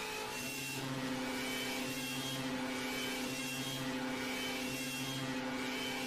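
Synthesized emergency alert (EAS-style) alarm tone. A steady buzzing drone has a lower tone pulsing on and off about once a second, with short high beeps stepping between pitches above it.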